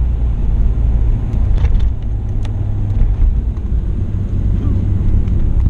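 Nissan Skyline R32 GT-R's twin-turbo straight-six (RB26DETT) running at a steady cruise, a low even drone heard from inside the cabin while driving, with a couple of faint clicks about two seconds in.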